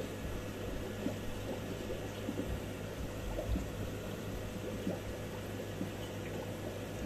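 Aquarium filter and aeration bubbling in the water, with many small irregular pops over a steady low electrical hum.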